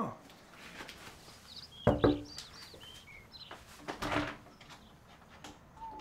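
A door thuds about two seconds in, with a softer knock about four seconds in, amid faint high chirps. A whistled tone begins near the end.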